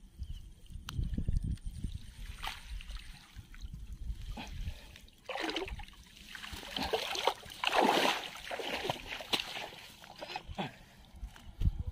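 Water splashing and dripping as a wet gill net with fish caught in it is pulled out of a pond by hand. The splashing is heaviest a little past the middle.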